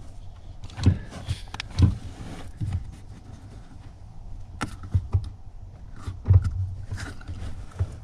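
A run of irregular clunks and knocks as a 2019 Mustang GT's stock pedal is pulled and worked by hand, the pedal cover holding on firmly.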